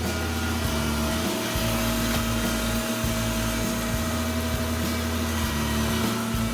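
Background music with a bass line stepping between low notes, over a steady mechanical drone.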